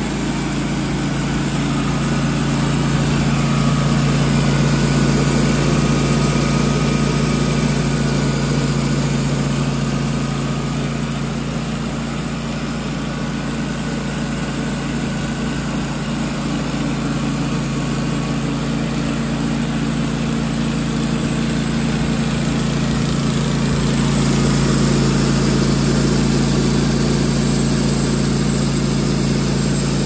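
Wood-Mizer LT15 Wide band sawmill running steadily, its band blade cutting lengthwise through a cypress cant.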